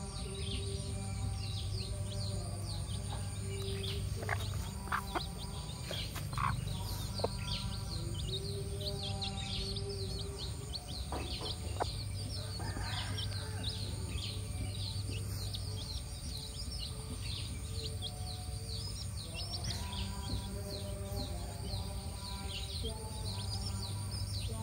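Young chicks peeping constantly, many short high, falling cheeps overlapping one another, over a steady low hum.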